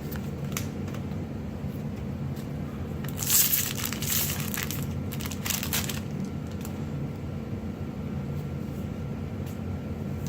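Crinkling and tearing of a foil Magic: The Gathering booster pack wrapper being opened, in a burst of about three seconds, with a few light clicks of handling before and after. A steady low hum runs underneath.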